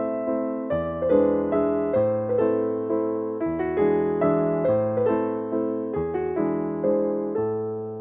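Background piano music: notes struck one after another and ringing out, over a lower note that changes every few seconds.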